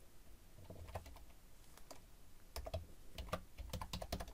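Computer keyboard typing: a run of quiet key clicks, sparse at first and coming quicker and closer together in the second half.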